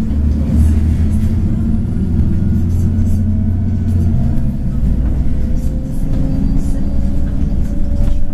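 City bus engine and drivetrain rumbling inside the passenger cabin while under way, with a slowly rising whine in the second half as the bus picks up speed.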